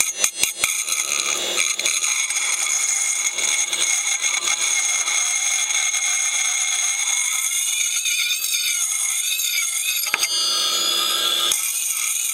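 Old 8 GB hard drive running with its cover off: the spinning platters give a steady high whine, and there is a quick run of clicks from the head actuator at the start. Near the end a wavering scraping or rubbing sound joins in, with a single click.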